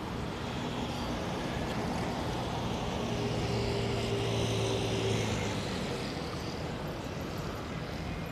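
A motor vehicle passing, its sound swelling to a peak about halfway through and then fading, with a steady low tone at its loudest, over steady street noise.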